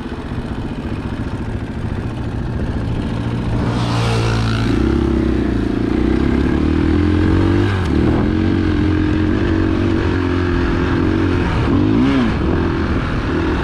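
Single-cylinder dual-sport dirt bike engine running under throttle. It gets louder about four seconds in, then holds with small rises and dips in pitch as the rider works the throttle.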